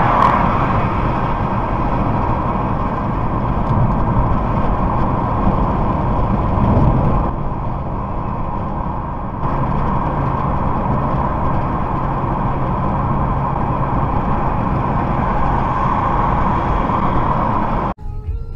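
Steady engine and tyre road noise of a car cruising at motorway speed, heard from inside the cabin. It cuts off abruptly near the end.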